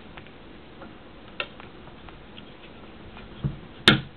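Faint scattered ticking, then near the end a dull knock followed by a sharp click, from the through pin being pulled out of an 1874 Sharps rifle's falling-block frame.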